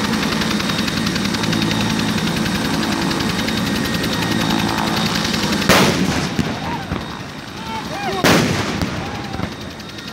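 Two loud ceremonial salute shots about two and a half seconds apart, each with an echoing tail, fired over a parade ground. A steady engine hum runs beneath them and falls away after the first shot.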